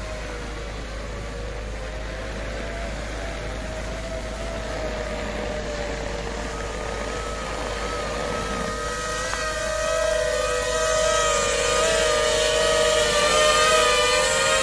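Quadcopter in flight, its propellers whining with a few steady, slightly wavering tones while it carries a frame of LED lights shaped like a ball. The whine grows louder about nine seconds in as the drone rises and comes closer.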